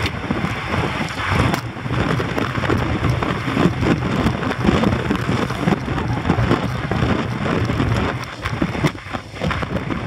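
Wind rushing over the microphone of a bike-mounted camera and tyre and road rumble from a road-race peloton riding at speed, a steady rough roar that dips briefly near the end.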